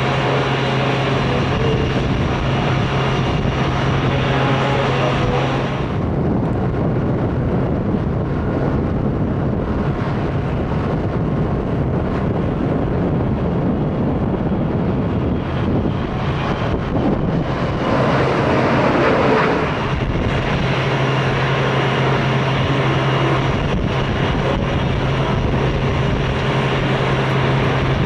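Jet aircraft noise: a parked airliner's steady low drone with a constant hum at the start and again near the end. In the middle the hum drops out, replaced by the rushing noise of a Gulfstream G450 business jet's engines at takeoff power, swelling loudest about two-thirds of the way through.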